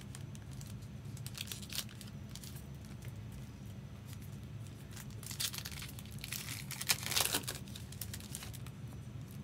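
Foil trading-card pack wrappers crinkling and tearing as packs are opened, heaviest from about five to seven and a half seconds in, over a steady low hum.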